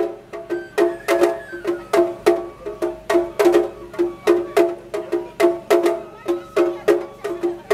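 Festival music: a quick, even run of sharp pitched strikes, about three a second, each briefly ringing.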